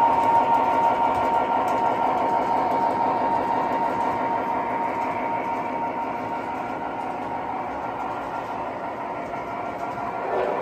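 MTH O gauge model Union Pacific SD24 diesel and its freight cars rolling past on the track: a steady whine from the locomotive that fades over the first few seconds as it moves off, under a continuous rumble and clatter of wheels on rail.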